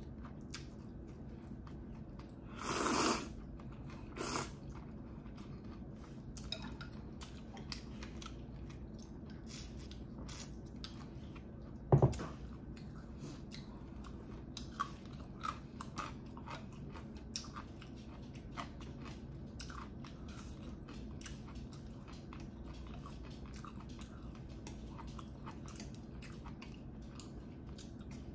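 Close-up eating of black bean noodles: steady chewing and wet mouth clicks, with a louder slurp about three seconds in and a sharp knock about twelve seconds in.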